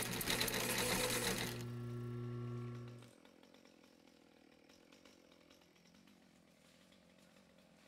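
Handheld angle grinder with a sanding disc sanding a carved hardwood panel, then lifted off and running free with a steady hum until it is switched off about three seconds in. Faint shop background follows.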